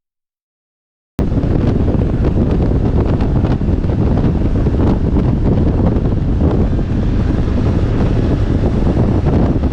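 Heavy wind noise on a microphone riding on a moving motorcycle: a loud, steady rush that starts abruptly about a second in and cuts off suddenly at the end.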